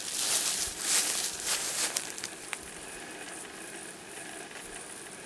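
Rustling and a few light clicks of hands handling things for the first two seconds, then a quieter steady hiss.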